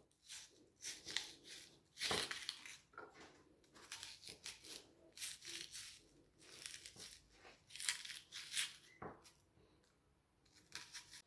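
A dolma corer scraping and crunching out the inside of a raw onion: a string of short, faint, irregular scrapes.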